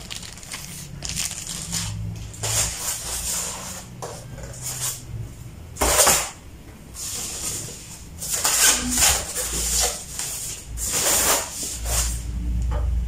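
Plastic wrapping rustling and polystyrene foam packaging scraping as a boxed monitor is unpacked by hand, in a string of short bursts, the loudest about six seconds in.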